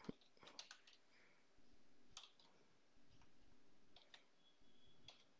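Faint, scattered clicks of a computer keyboard and mouse, a handful spread over several seconds, with a few brief stretches of low hum between them.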